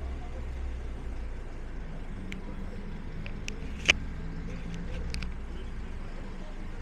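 City street traffic: a steady low hum of vehicle engines, broken by several sharp clicks, the loudest about four seconds in.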